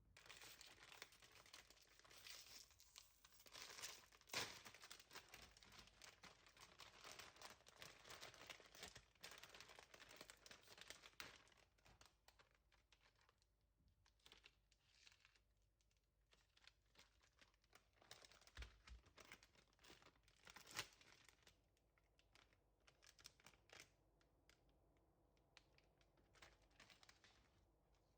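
Faint crinkling and rustling of something being handled, a dense run of small crackles that thins out about halfway through into scattered ones.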